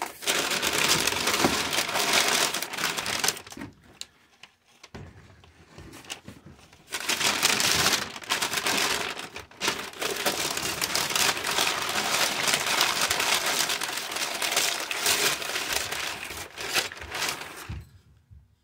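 Packing material crinkling and rustling as a package is unwrapped by hand, in two long spells with a lull of a few seconds between, stopping shortly before the end.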